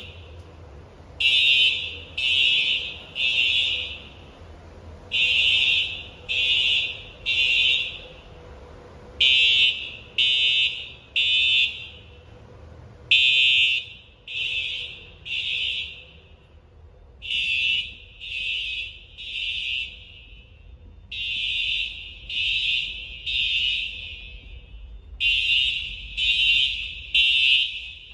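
Simplex TrueAlert fire alarm horns sounding the temporal-three evacuation pattern: three harsh, high-pitched, insanely loud blasts, a pause, then three more, repeating steadily about every four seconds.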